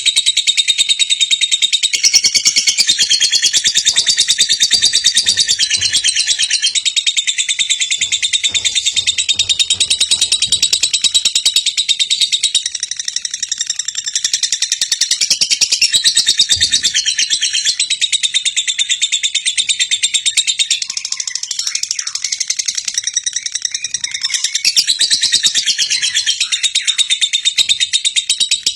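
Lovebird chattering song: a long, unbroken run of rapid, high chirps and trills, which cuts off suddenly at the end.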